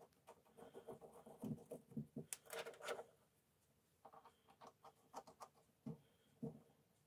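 Faint scratching and small metallic clicks of a threaded steel stud being turned in by hand and metal parts handled, in two spells with a quiet pause of about a second between them.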